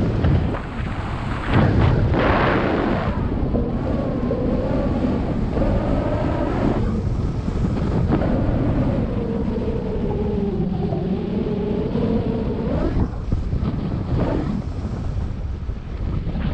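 Wind buffeting the microphone: a loud, gusty rumble with a wavering whistle-like tone over it through the middle.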